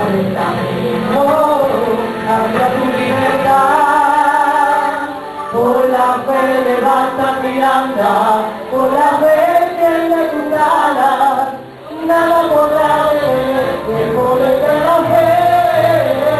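A woman, a man and boys singing a worship song together into microphones over a church PA, with long held notes and hall echo. The singing breaks off briefly about twelve seconds in.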